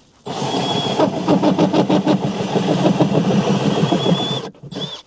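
Power drill boring a hole through the bottom of a truck camper's battery compartment, running under load with a rapid chatter for about four seconds, stopping, then running again briefly near the end.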